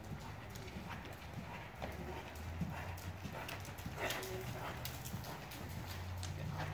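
Hoofbeats of a ridden horse moving around an indoor arena on soft sand footing, a run of irregular soft thuds and clicks, over a low steady hum.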